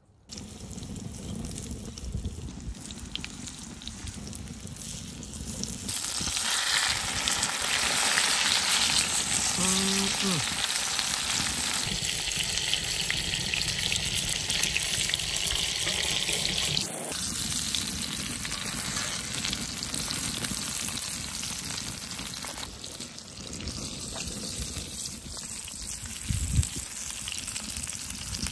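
Breaded wild hog cutlets frying in hot rendered lard in a cast-iron skillet: a steady sizzle that grows louder about six seconds in.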